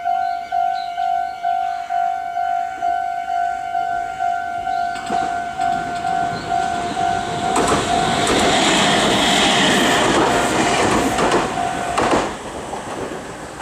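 A Japanese level crossing's electronic warning bell dings in a rapid, even repeat while a Meitetsu 3100-series electric train passes over the crossing. The train grows louder from about five seconds in and is loudest from about eight to twelve seconds, when the bell cuts off as the train clears.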